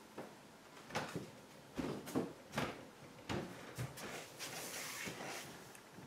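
A series of footsteps and knocks as a person walks across a room, then a rustle of clothing and cushion as she sits down on a sofa, about four and a half seconds in.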